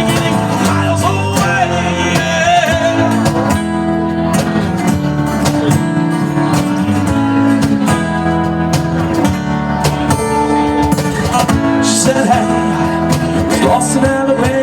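Live band playing a song led by strummed guitar, an instrumental stretch with no words sung.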